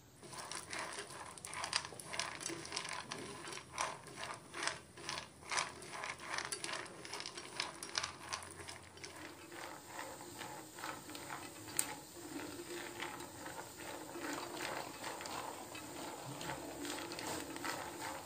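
Skinless peanuts being stirred with a spatula in a frying pan as they toast on low heat, the nuts rattling and clicking against the pan and each other in repeated strokes.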